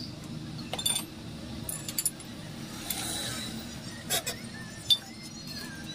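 Metal parts clinking and knocking as a Maruti Suzuki Swift Dzire front shock-absorber strut is reassembled by hand, its top mount and spring seat being set onto the coil spring: a handful of separate sharp clicks, the sharpest near the end, over a steady low hum.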